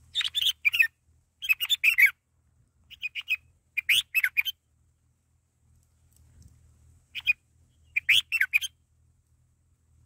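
Red-whiskered bulbuls at the nest chirping in short runs of quick notes, many sliding down in pitch. There are four runs in the first half, a pause, then two more runs near the end.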